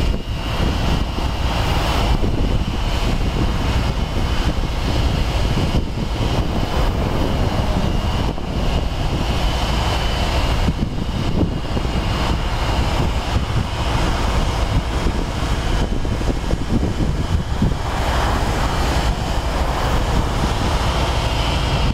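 A steady, loud, low drone of the diesel engines and pumps at a working hydraulic fracturing (fracking) site.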